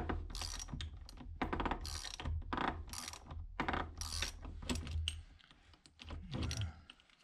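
Socket ratchet wrench clicking in quick repeated strokes, about two a second, as a nut is cranked along a threaded bar to draw the lathe spindle out. It eases off and stops near the end.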